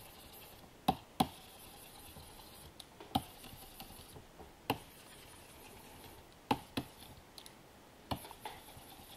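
Scattered sharp plastic clicks and taps, several in quick pairs, from painting with a stylus on a Wacom Cintiq pen display, over faint room hiss.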